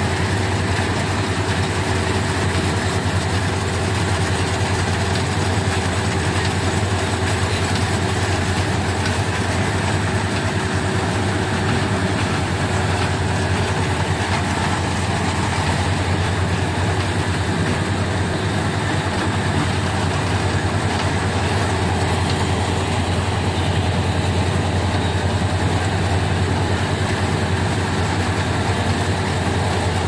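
Rice combine harvester's diesel engine running steadily, a low, even drone that does not change.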